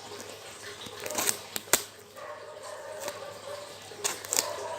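Packaging being handled and opened by hand, with a few sharp snaps and crinkles in two clusters, about a second in and again near the end.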